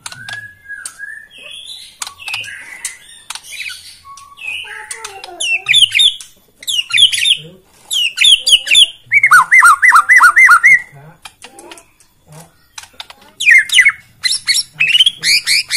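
White-rumped shama (murai batu) singing. Soft, varied warbles and clicks give way to loud bursts of rapid, repeated whistled notes, with a run of about eight lower, evenly spaced notes near the middle.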